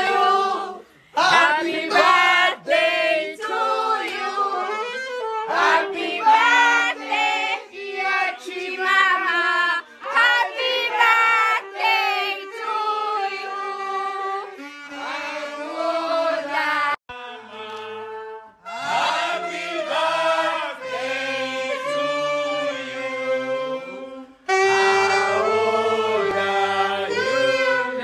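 A song with a lead singing voice over backing music, with a short break in the vocal line about two-thirds of the way through.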